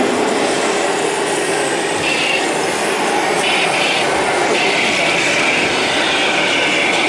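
1/16 scale RC model tanks driving: a steady mechanical clatter of plastic or metal tracks with a whine from the electric gear motors that comes in about two seconds in.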